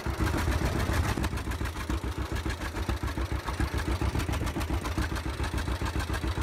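John Deere two-cylinder tractor engine running steadily, each firing heard as an even, rapid pop.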